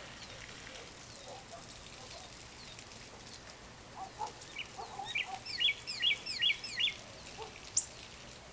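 Birds calling at dusk: low clucking notes start about four seconds in, then a quick run of high chirps lasts about two seconds, and a single sharp high note comes near the end.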